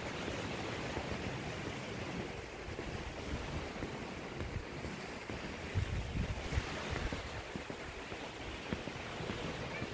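Waves washing on a beach, a steady hiss of surf, with wind buffeting the microphone in low gusts, strongest about six seconds in.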